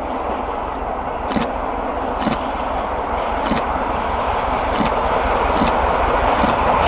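GWR Castle Class four-cylinder steam locomotive and its coaches passing at speed: a steady rushing roar that grows louder as the train nears, with sharp clicks about once a second.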